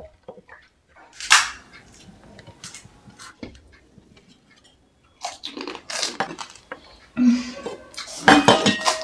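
Pani puri eating sounds: a ladle clicking in a clay pot and crisp puris cracking, with a sharp crackle about a second in, then wet crunching and slurping as the puris are dipped and eaten, busiest and loudest over the last few seconds.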